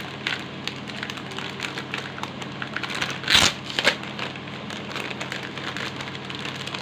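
Paper greeting cards and their packaging rustling and crinkling as they are handled and taken out, with scattered small clicks and a louder crackle about three and a half seconds in.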